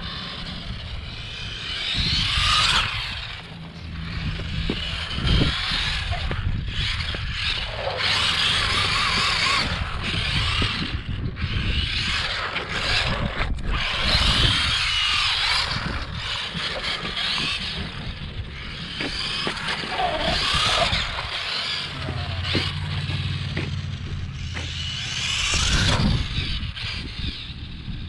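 Brushed electric motor and drivetrain of a Traxxas 1/16 Slash 4x4 RC truck whining as it is driven on concrete, the pitch and loudness rising and falling as the truck speeds up and slows.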